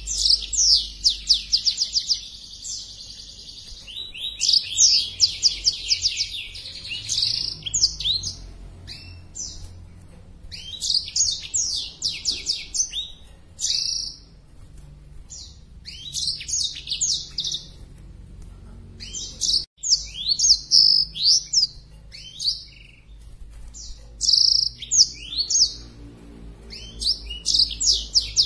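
Black-throated canary (blackthroat) singing in phrases of rapid, high chirps and trills a few seconds long, with short pauses between phrases. It is a male singing hard in breeding condition.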